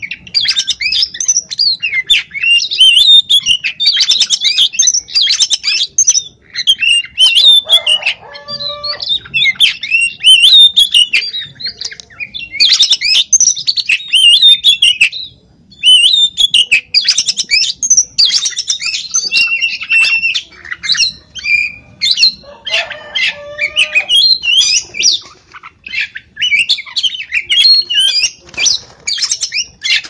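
Oriental magpie-robin (kacer) singing almost without a break: a loud, fast run of varied whistled and scratchy phrases, with short pauses. Twice a lower-pitched call cuts in among the song.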